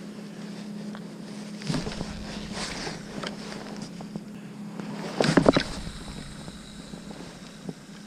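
Handling noises from a spinning reel and surf-casting rod, then a cast about five seconds in: a short, loud rush of air and wind buffeting on the microphone as the rod is swung. A steady low hum runs underneath.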